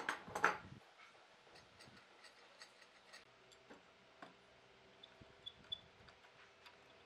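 Two sharp wooden knocks as a wooden batten is set down on the pine strips and bench, then a scatter of light clicks and taps as a steel C-clamp is fitted over the batten and bench edge.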